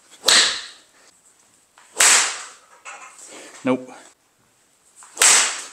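Golf club swung at balls off a turf hitting mat: a sharp strike just after the start, another loud smack about two seconds in, and a third sharp strike near the end.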